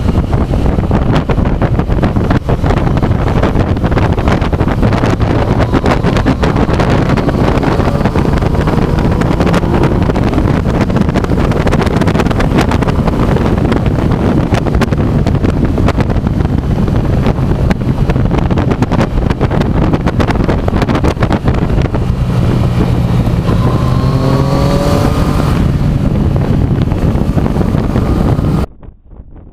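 Motorcycle riding at speed, with heavy wind noise on the bike-mounted action camera's microphone over the engine. Near the end the engine pitch rises briefly, then the sound drops suddenly to much quieter.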